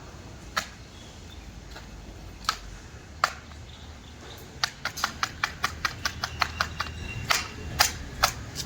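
Sharp clicks or taps, a few single ones, then a quick run of about six a second lasting a couple of seconds, then three more near the end, over a faint steady low hum.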